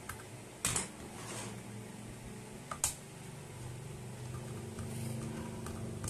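Hand-disassembly noises from a JBL Flip 5 speaker's plastic housing and internal parts: a short scrape about a second in and one sharp click near the middle, with a few faint ticks, over a steady low hum.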